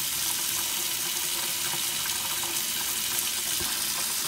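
Kitchen faucet running a steady stream of hot water into a stainless steel sink, a constant splashing hiss.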